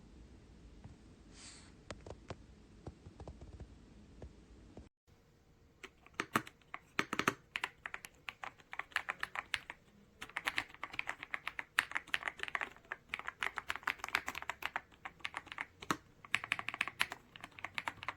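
Typing on the Epomaker Ajazz AK820 Pro mechanical keyboard. A few faint key clicks come first. After a sudden cut about five seconds in, a fast, steady run of key clacks follows in bursts.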